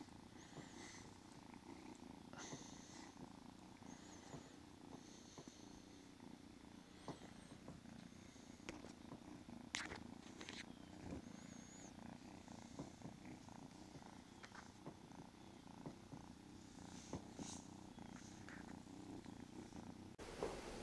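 Young kitten purring faintly and steadily, with a couple of light clicks about halfway through.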